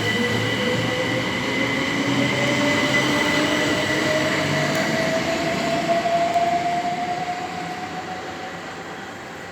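Passenger train pulling away, its motor whine rising steadily in pitch over steady high-pitched tones. The sound fades over the last few seconds as it moves off.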